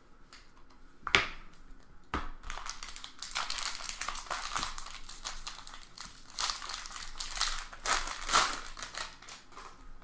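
A trading card pack's foil wrapper being torn open and crinkled, with cards handled. Two sharp taps come about one and two seconds in, before the crinkling.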